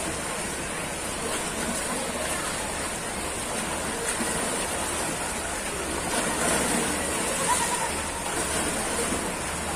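Shallow lake water lapping and splashing as swimmers kick along on rubber inner tubes, a steady wash of water noise with faint voices in the background.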